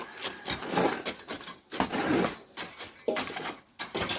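Irregular clattering and scraping of construction work, a run of short knocks and scrapes at uneven intervals.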